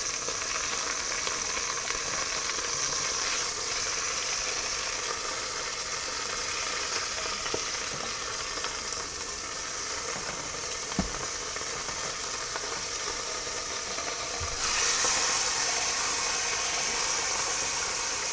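Beef rump roast searing in the pot of an electric pressure cooker: a steady sizzle of fat and meat juices. About fifteen seconds in, the sizzle grows louder and brighter, and a faint knock sounds a few seconds before that.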